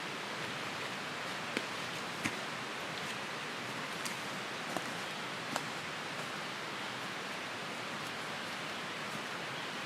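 Steady rushing outdoor noise with a few faint scattered clicks.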